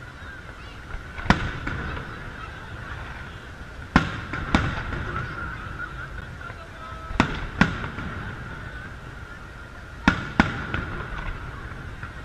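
Aerial firework shells bursting: seven sharp bangs, mostly in pairs a few tenths of a second apart, about every three seconds. Under them run a low rumble and a steady high tone.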